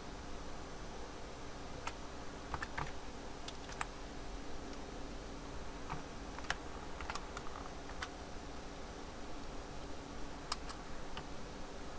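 Computer keyboard being typed on: single keystrokes at uneven intervals with a few quick clusters of taps, over a faint steady hum.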